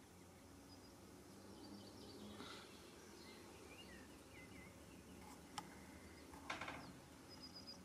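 Quiet ambience with faint small birds calling: scattered thin chirps and whistles, a sharp click a little after halfway, and a short rattling call about a second later.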